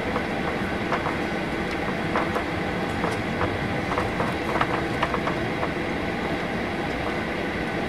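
Cabin noise in a Boeing 737-800 taxiing: the steady rumble and hum of its CFM56 engines at idle, with irregular clicks and rattles as the aircraft rolls along the taxiway.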